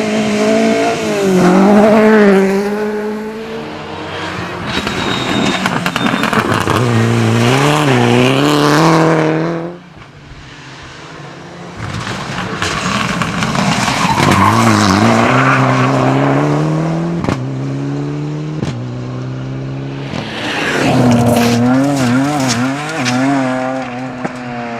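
Rally cars at full throttle on a stage, engines revving up and down through gear changes and throttle lifts. The sound cuts off abruptly about ten seconds in, then another car passes with its engine note climbing and falling again.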